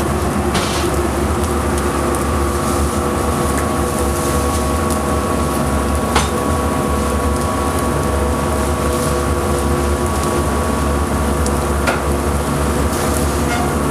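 Steady mechanical hum of a running motor, made of several fixed tones over a light hiss, with a few faint clicks.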